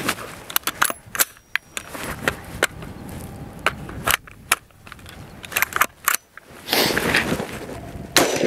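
Sharp metallic clicks and clacks of a 5.56 Colt LE6920 AR-15's action being worked by hand, then a loud unsuppressed rifle shot near the end. The bolt carrier is set to suppressed mode with no suppressor fitted, so the gas is too weak to cycle the bolt and each round must be charged by hand.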